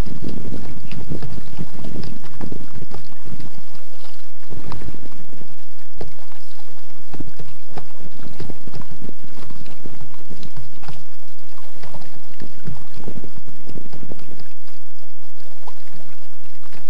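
Loud wind buffeting the microphone, over short irregular splashes and slaps of water around a sit-on-top kayak.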